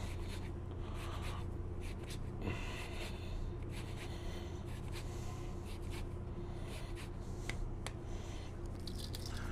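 Lemon rind being grated on a Microplane zester: intermittent scraping strokes over a steady low hum.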